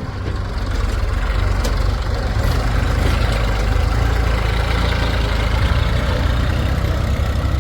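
Heavy diesel machinery engine running steadily with a deep rumble, getting a little louder about half a second in.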